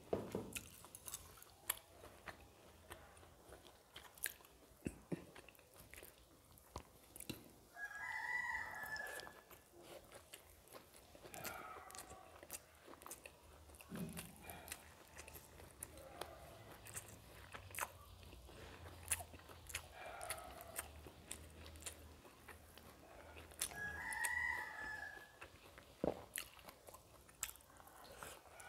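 Close-up eating sounds: wet chewing and many small clicks and smacks as fingers mix rice on a steel plate and carry it to the mouth. A rooster crows twice in the background, about eight seconds in and again some sixteen seconds later.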